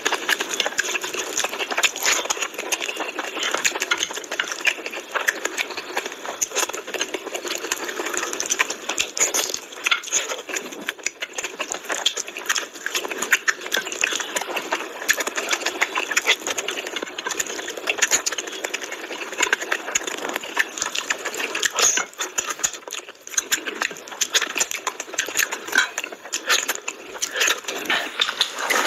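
Close-miked eating sounds of mutton curry and rice eaten by hand: chewing, mouth smacking and wet squelching of gravy-soaked rice between the fingers, a dense, continuous run of small clicks.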